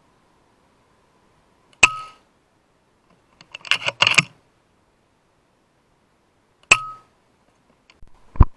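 Two shots from a .22 FX Impact M3 PCP air rifle, about five seconds apart, each a sharp crack with a short metallic ring. Between them comes a quick run of clicks and clinks as the side-lever action is cycled to chamber the next pellet. Another short click comes near the end.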